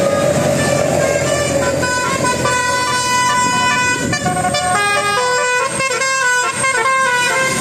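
A vehicle's musical horn playing a quick tune of short notes that step from pitch to pitch.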